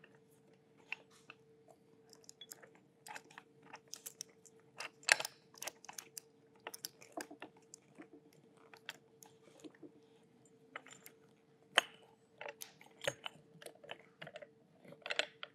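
Scattered light clicks and knocks of the parts of a ram-style electronics mount being handled by hand: base plates, arm and knuckles fitted and turned together, with a sharper knock about five seconds in and again near twelve seconds. A faint steady hum runs underneath.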